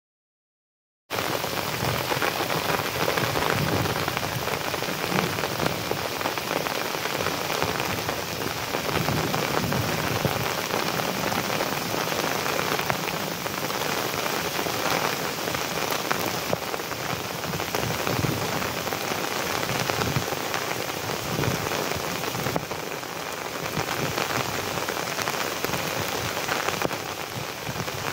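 Heavy rain falling steadily, a dense even patter of drops on surfaces. It starts abruptly about a second in.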